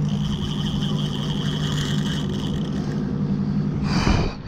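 Boat engine running steadily with a low, even hum, a thin high whine over it for the first couple of seconds, and a brief loud burst of noise about four seconds in.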